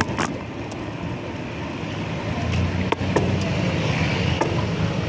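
Street riding noise heard from a moving bicycle: a steady hiss of rolling and traffic noise with a few knocks and rattles. A low motor-vehicle engine hum grows from about halfway in.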